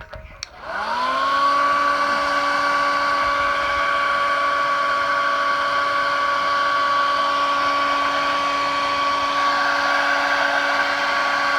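Hair dryer switched on with a click about half a second in, its motor spinning up within a second to a steady whine over a rush of blowing air. It is blowing hot air to soften a motorcycle tank pad's adhesive.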